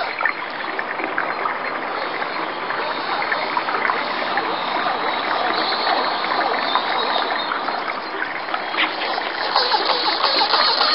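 Radio-controlled model canoe's motor-driven paddling figures: the small electric drive mechanism clicks and rattles steadily while the paddles splash in the water, louder near the end as the boat comes close.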